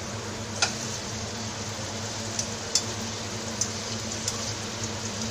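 Potato pieces sizzling as they deep-fry in hot oil, with a handful of sharp clicks and a steady low hum underneath.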